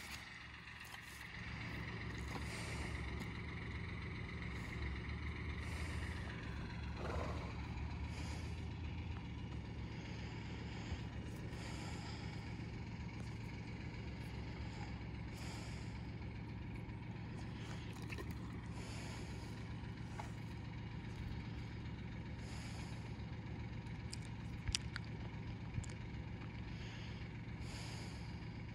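A steady low engine hum runs throughout, with a higher whine that falls in pitch about seven seconds in. A few faint clicks come near the end.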